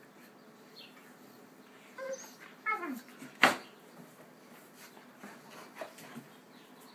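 An Alaskan Malamute and a pit bull puppy play-fighting: short whining yelps about two seconds in, one falling in pitch, then a single sharp loud sound about half a second later.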